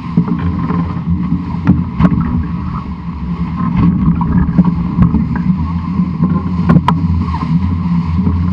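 Wind rumbling on a mast-mounted camera's microphone and the rush of water and spray from an 18-foot sailing skiff's hull moving fast under spinnaker. A few sharp knocks break through, a pair about two seconds in and another pair later on.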